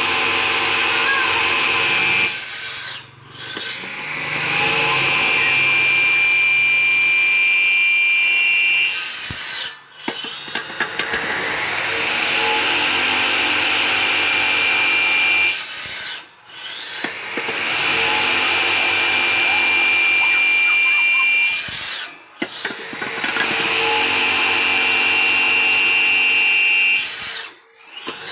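Bamboo-cutting machine running and cutting bamboo in repeated cycles: a steady powered sawing sound that briefly drops out about every six seconds, five times in all.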